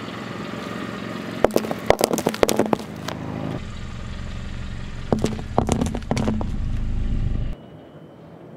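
Car tyre rolling slowly over small coloured balls on asphalt, crushing them with two bursts of crackling and crunching, over the car's low running and tyre noise. The sound cuts off abruptly near the end.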